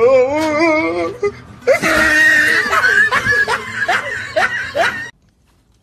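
A person laughing hard: a pulsing, wavering laugh, then louder shrieking, wheezy laughter that cuts off abruptly about five seconds in.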